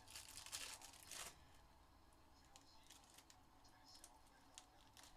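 Faint foil wrapper of a trading-card pack being torn open: two short rips in the first second and a half, then light crinkling of the foil and cards being handled.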